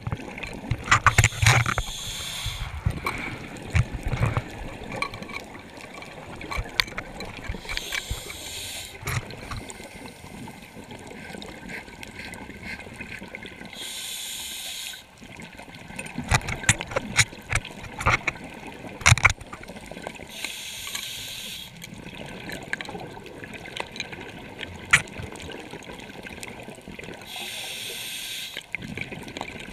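Scuba regulator breathing underwater: a hiss with each inhalation, five times at roughly six-to-seven-second intervals. Between breaths come bursts of exhaled bubbles, crackling and gurgling.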